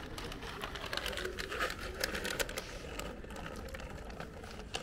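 Cats crunching dry kibble: a dense run of small, quick crackling clicks, thinning out after about three seconds.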